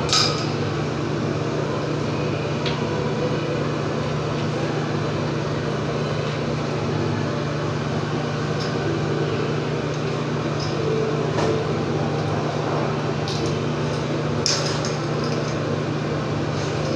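A steady low machine hum, with a few light clinks and knocks scattered through it.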